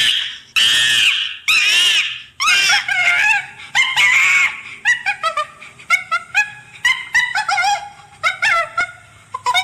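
Wild animal calls: two or three loud, harsh screeches, then a string of short, pitched calls that rise and fall, coming faster and in quicker bursts over the last few seconds.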